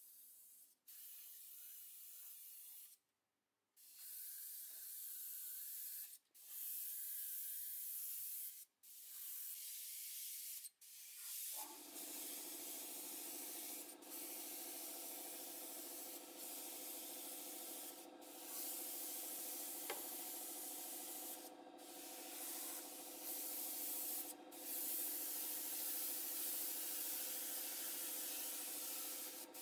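Sanding rust off small metal parts: a scratchy, even hiss in long strokes of two or three seconds with brief pauses between them. About twelve seconds in, a steady electric hum starts and runs on under the sanding.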